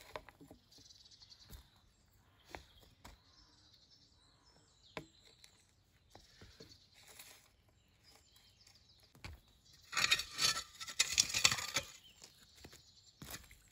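Hand tools working the dirt and forest debris of a trail: scattered small scrapes and knocks, then a couple of seconds of loud scraping and rustling about ten seconds in, and a shorter burst near the end.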